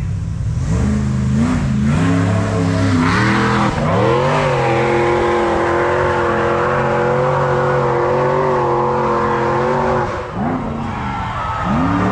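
High-horsepower off-road hill-climb vehicle's engine revving up over the first few seconds, then held at high revs for about five seconds. It drops off sharply, then is blipped twice near the end.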